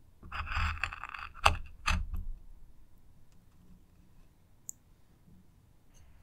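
Kitchen knife cutting through a cooked octopus head stuffed with a quail egg on a wooden cutting board: a short scraping slice, then two sharp knocks about a second and a half and two seconds in.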